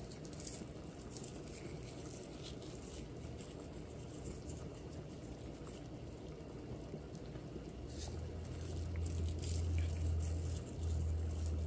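Large stainless pot of red posole broth boiling hard on a gas burner, bubbling steadily. About eight seconds in a low hum joins it for a few seconds.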